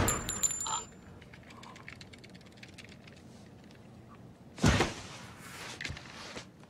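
The echo of a handgun shot dies away over the first second, and then it is nearly quiet. About four and a half seconds in, a single short thud sounds as the shot woman's body drops to the floor.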